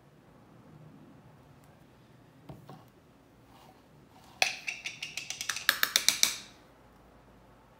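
A spoon knocking rapidly against a clear plastic blender jar to shake sticky cashew butter off into it: a single light tap, then about a dozen sharp knocks in quick succession over two seconds.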